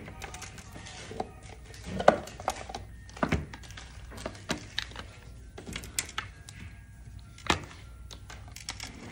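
Irregular taps and knocks of cardboard watch boxes, their lids and a wristwatch being handled on a glass display counter, the loudest knock about two seconds in. Faint background music plays under it.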